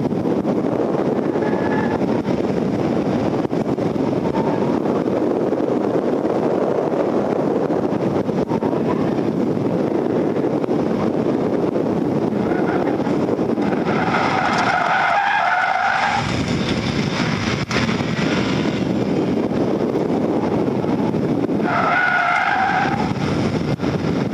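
Engine and road noise inside the cabin of a 2012 Volkswagen Beetle driven hard through an autocross course. The tyres squeal twice as it corners, for about two seconds just past the middle and again briefly near the end.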